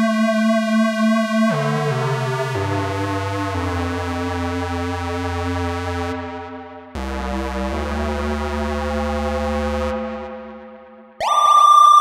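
Yamaha CS01 analog monosynth through a tape echo, playing a held buzzy note and then lower bass notes stepping downward, each swelling and fading out. About eleven seconds in, a louder, steady high tone starts abruptly.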